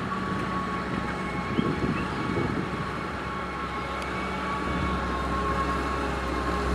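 Caterpillar 140H motor grader's diesel engine running steadily, with a steady whine over the engine noise; the deep rumble grows stronger about two-thirds of the way through.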